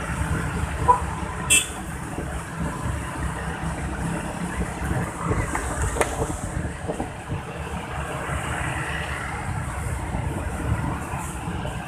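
Wind buffeting a helmet-mounted camera microphone while riding a motor scooter in a group, with engine and road noise underneath. There is a brief beep about a second in and a sharp click shortly after.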